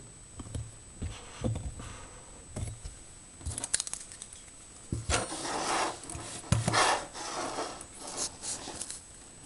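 Off-camera workbench handling sounds: scattered knocks and clicks, with bursts of rustling and scraping that are loudest in the middle and again near the end, over a faint steady high-pitched whine.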